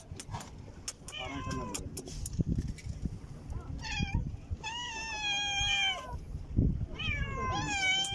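Hungry kittens meowing: high-pitched calls, a couple of short ones and then two longer drawn-out meows of about a second each in the second half. A few light clicks come in the first couple of seconds.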